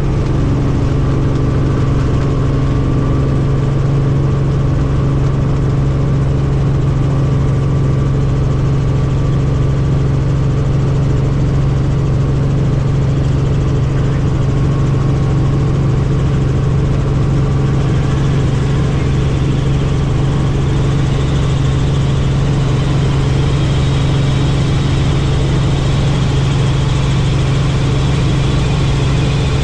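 Helicopter engine and rotors heard from inside the cabin, a steady low drone as it lifts off and climbs. A higher hiss joins in about two-thirds of the way through.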